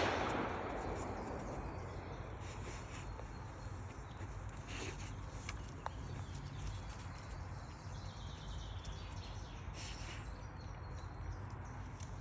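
The echo of a loud bang dies away in the first second or so, leaving quiet woodland ambience: a steady low rumble with a few faint clicks and ticks.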